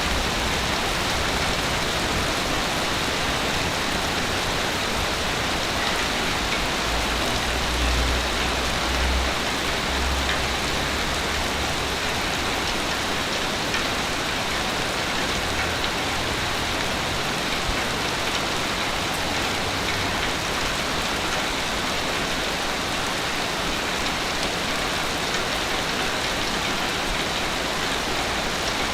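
A steady, even hiss of rushing water with no clear swell and ebb, broken by low rumbles about eight to ten seconds in and again around sixteen to twenty seconds.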